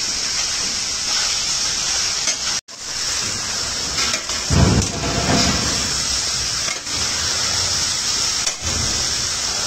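Beef cubes sizzling as they sear in a stainless steel pan while being stirred with a metal spatula: a steady hiss, broken off for a moment about two and a half seconds in, with a short louder low sound about halfway through.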